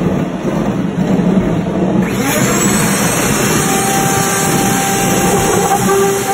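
Drive motor and rollers turning a large foam dome with a steady mechanical running noise; about two seconds in, a handheld router starts up with a rising high whine and keeps running, cutting into the rotating foam.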